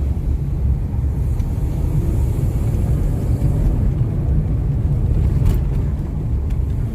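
Steady low rumble of a car driving along a road, its engine and tyre noise heard from inside the cabin.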